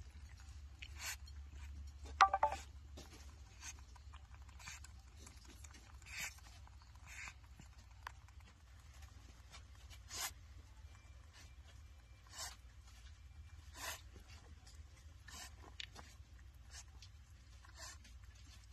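Toothless groundhog gumming chopped salad from a plastic bowl: irregular soft crunches and mouth smacks, about one a second. A short, louder squeak about two seconds in is the loudest sound.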